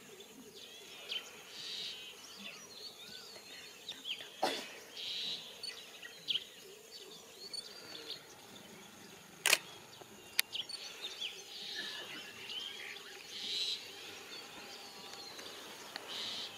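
Small birds chirping and calling on and off over a faint steady hiss of open country, with three sharp clicks, the loudest about halfway through.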